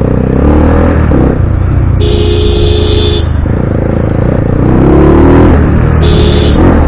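Bajaj Pulsar 180 converted to 220, its single-cylinder engine breathing through an SC Project aftermarket exhaust, running and picking up revs while riding. A vehicle horn honks for about a second around two seconds in, and again briefly near the end.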